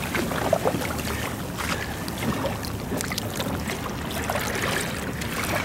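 Sea water sloshing and trickling around a kayak resting on a whale's back, with scattered small splashes and taps, over a low wind rumble on the microphone.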